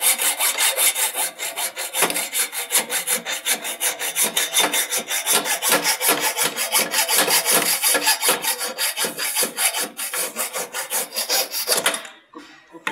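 Hacksaw blade cutting through a stopper on a scooter's stand bracket: quick, even back-and-forth rasping strokes, about five a second, which stop about twelve seconds in.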